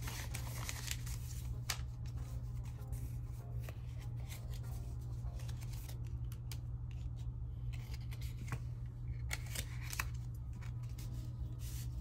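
Paper banknotes rustling as they are counted and tucked into envelopes, with scattered sharp papery clicks, over a steady low hum.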